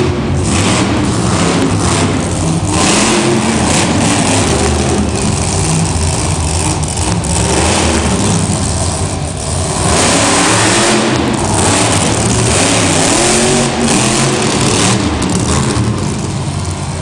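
Bounty Hunter monster truck's engine revving hard, rising and falling in pitch over and over as the truck is thrown around the dirt floor.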